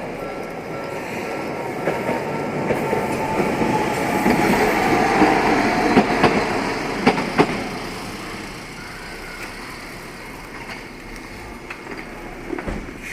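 A single-car Toden Arakawa Line tram passing over a level crossing. Its wheel and running noise grows to its loudest about halfway through, with a few sharp clacks as the wheels strike the rail joints and crossing, then fades away.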